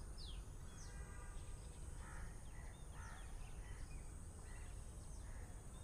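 Crickets trilling steadily at a high pitch, quiet, with a few faint scattered scrapes and clicks.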